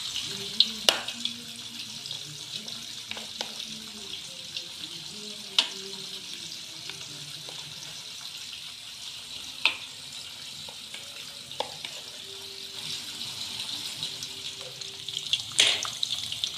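Mushroom fritter batter frying in hot oil in a wok: a steady sizzle, broken by a few sharp clicks of a metal spoon against the pan.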